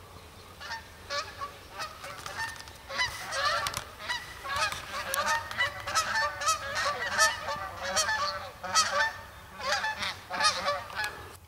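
A flock of geese honking, with many short calls overlapping, thickest through the middle and tailing off near the end.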